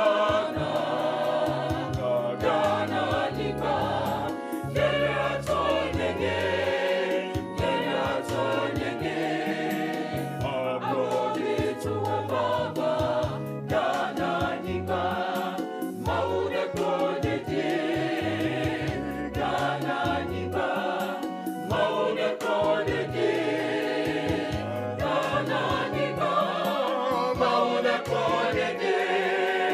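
Background music: a choir singing gospel over a steady bass beat.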